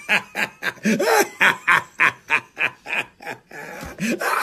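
A man laughing hard in rapid, even bursts of about three a second, with a longer, breathier stretch near the end.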